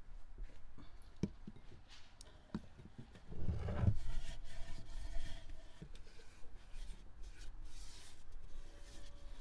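Hand-handling noises: small taps of fingers scooping butter from a ceramic bowl, then a heavier scrape and knock about three and a half seconds in as a large clay pot is tipped over on the wooden table. After that, a hand rubs and smears butter around the dry inside of the unglazed clay pot in short scraping strokes.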